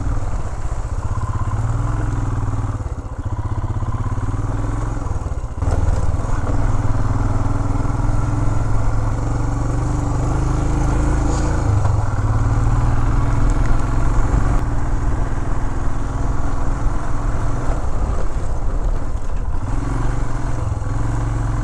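Royal Enfield Himalayan's single-cylinder engine running as the motorcycle rides a rough dirt track, its note wavering up and down; it gets louder about six seconds in.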